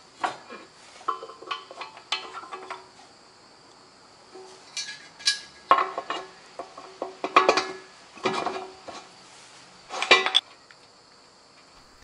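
Steel bucket pin and linkage of a John Deere 260 backhoe clinking and clanking as the pin is worked into place to remount the bucket: a scattered series of sharp metallic knocks with brief ringing. Steady high insect chirring runs underneath.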